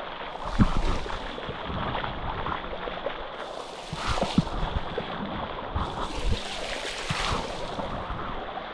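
Water running down the rocks of the Sticky Waterfall, a steady rushing wash. A few dull thumps and splashes sound through it.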